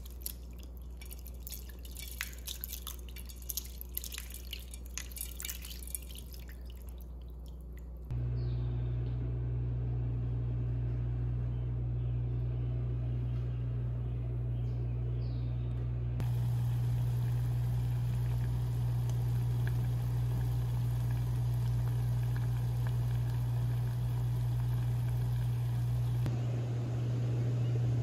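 Icy, slushy mulhoe broth gushing from a steel bowl onto a bowl of salmon and vegetables, splashing and dripping, for about eight seconds. Then it cuts to a steady low hum with a faint hiss that runs on.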